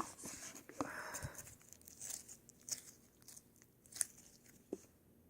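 Homemade slime with foam beads mixed in being squished and stretched by hand, giving soft crackling and small sticky pops, busier in the first second or so, then only an occasional click.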